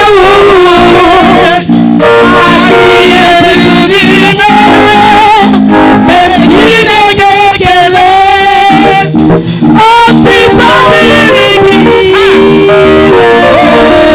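Loud praise music: a voice singing a long, wavering melody over guitar and band accompaniment.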